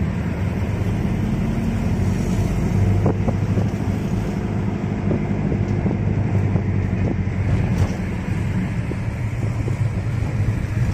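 Steady low rumble of a car driving, engine and tyre noise heard from inside the car.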